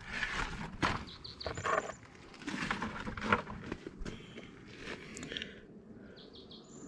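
Water and sand sloshing in a plastic gold pan as it is swirled and shaken, in repeated swishes with small clicks of grit.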